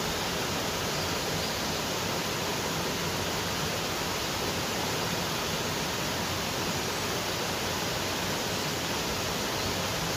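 Water pouring over a small weir and down its central chute into the pool below: a steady rushing that holds even throughout.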